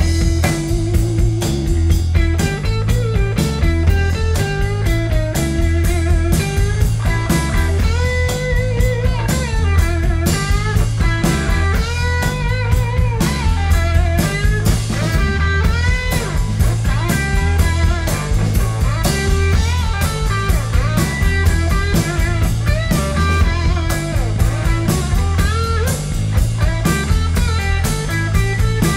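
Live rock band playing an instrumental passage: a Les Paul-style electric guitar leads with bent, wavering notes over a steady bass guitar and drum kit groove.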